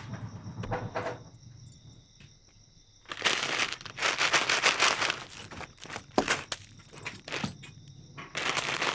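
Plastic snack packets crinkling and rustling as they are handled, in uneven bursts: loudest from about three to six seconds in and again near the end.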